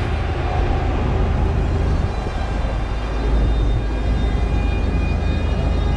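City street ambience carried by the steady low rumble of road traffic.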